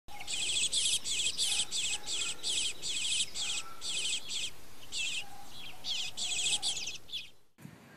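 Eastern bluebird fledgling begging calls: a quick run of short, high chirps, about three a second, that stops about seven and a half seconds in.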